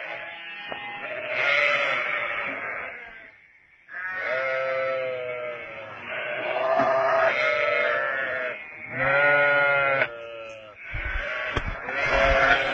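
Lamb bleating repeatedly: about five long calls with a short quiet gap about a third of the way in. A few low thumps come near the end.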